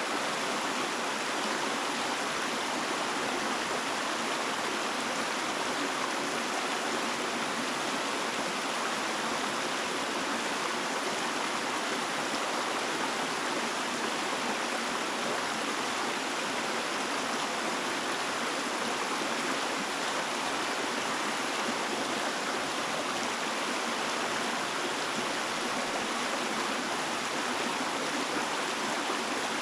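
Running water flowing steadily, an even hiss with no separate splashes or other events standing out.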